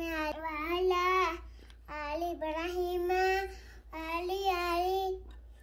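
A young boy singing in a high voice: three long, drawn-out phrases with short breaks between them.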